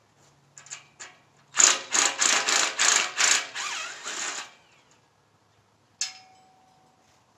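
Hard metal knocks on the steel pipe of a hay ring being bolted together: a quick run of knocks at about four a second for some three seconds, then a single sharp clank near the end that rings on briefly.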